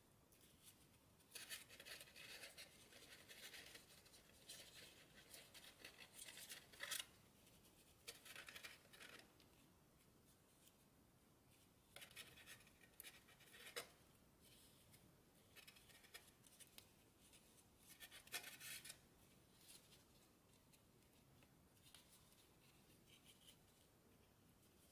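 Faint paper rustling and crinkling as fingers fold and crease an origami model, in scattered bursts of rustle and crackle. It is busiest in the first seven seconds, comes in shorter bursts after that, and is fainter near the end.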